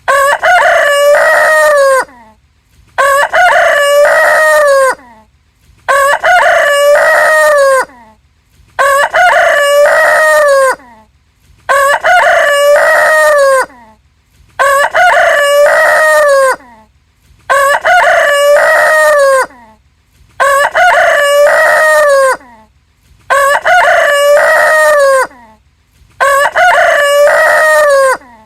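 A rooster crowing over and over: about ten near-identical cock-a-doodle-doo crows, each about two seconds long, with a short silence between them at an even pace of about one every three seconds, like a single crow repeated.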